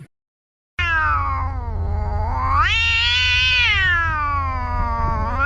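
A cat's long drawn-out yowl, starting just under a second in after a brief silence. Its pitch dips, climbs high, then slides slowly down again in one unbroken call, with a steady low hum underneath.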